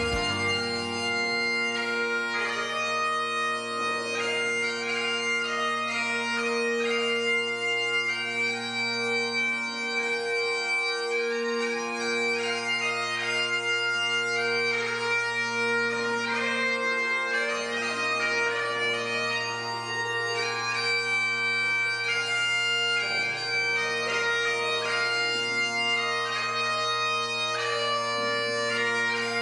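Bagpipes playing a tune over steady, unbroken drones.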